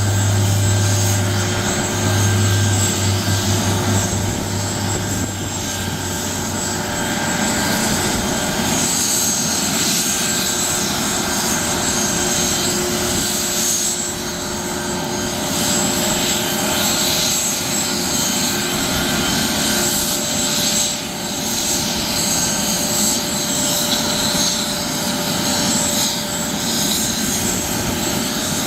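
Police helicopter's turbine engine running on the ground, a steady whine over noise. A low, pulsing rotor beat fades away in the first several seconds.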